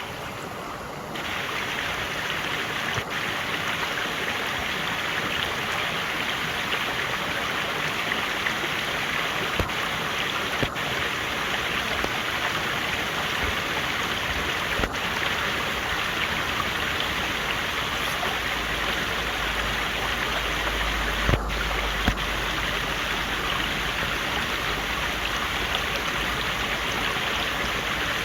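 Mountain valley stream flowing steadily in an even rush of water.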